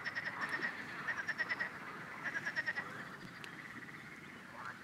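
Frogs calling: three short runs of rapid pulsed trills, each about half a second long, over a faint steady background.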